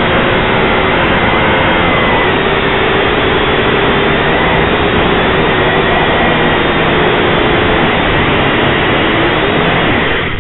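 Small drone's electric motors and propellers whining steadily, loud and close from the drone's own onboard camera, the pitch wavering a little as it flies.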